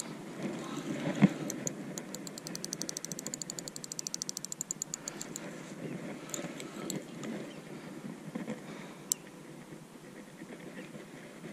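Fixed-spool carp reel being wound in after a cast: a loud knock of handling about a second in, then the reel clicking in a fast, even run for about three seconds, followed by quieter handling noise and one more sharp click.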